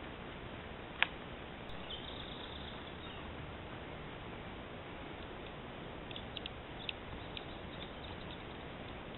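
Steady hiss of a trail camera's microphone with a sharp click about a second in, a brief faint high squeak at about two seconds, and a scatter of small ticks between six and seven seconds in.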